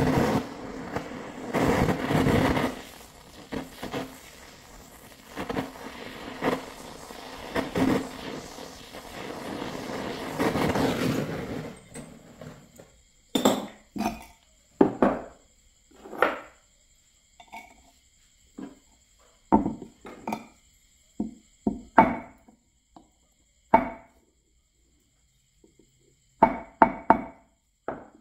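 Handheld gas torch burning steadily for about twelve seconds, then stopping. After it comes a series of sharp knocks and metallic clinks as the clay tile and metal tools are handled and set down.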